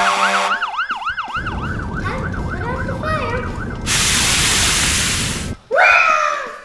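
Fire-truck siren sound effect yelping in quick rises and falls, about four a second, over music, fading out as a low rumble comes in. About four seconds in, a loud hiss of water spraying from a fire hose lasts about a second and a half, and near the end a quick loud falling tone sounds.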